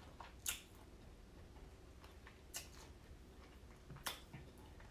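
Eating sounds of a person chewing: three short, sharp smacks or clicks, about half a second in, near the middle and near the end, with fainter ticks between, over a low steady hum.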